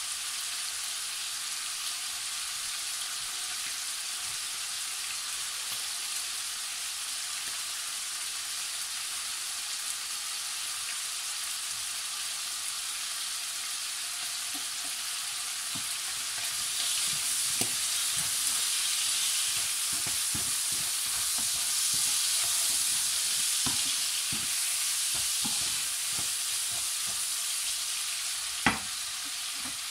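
Diced lamb sizzling as it browns in a frying pan. The sizzle grows louder about halfway through, with scattered small pops. Near the end a wooden spoon gives one sharp knock against the pan as the meat is stirred.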